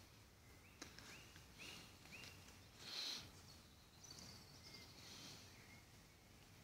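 Faint woodland birdsong: a bird repeats a short high call about four times, followed by a louder high call about three seconds in and a high trill after it. A single faint click about a second in.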